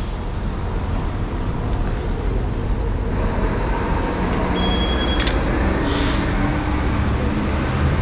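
City street traffic: a steady low rumble of passing and idling vehicles. A sharp click comes about five seconds in, followed by a brief hiss a second later.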